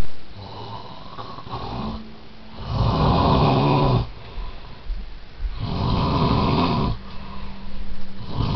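A man snoring in his sleep: a softer snore first, then loud snores about every three seconds, each lasting a little over a second.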